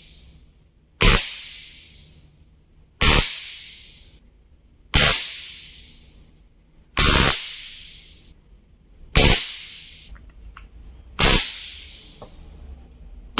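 Electric stun gun (taser) zapping in repeated short bursts, about one every two seconds: six in a row, with a seventh starting at the very end. Each starts sharply and fades out over about a second in a high hiss.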